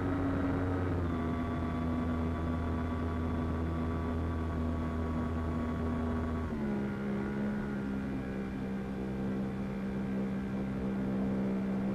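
Onboard sound of an HK TL2000 RC model plane's electric motor and propeller running at steady throttle, heard through the onboard camera's microphone. It is a steady hum that drops a step in pitch about halfway through as the throttle is eased back.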